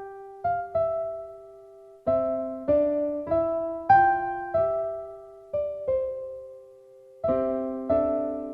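Background piano music: slow chords and single notes, each struck and left to ring out and fade.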